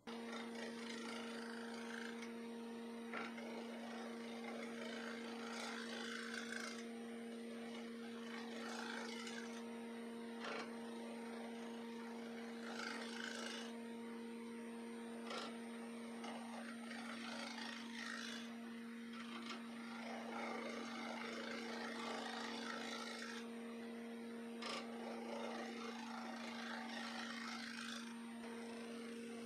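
Wood lathe running with a steady motor hum while a gouge cuts a spinning cast-resin disc. The scraping hiss of the cut swells and fades in passes of a second or two, with a few sharp clicks.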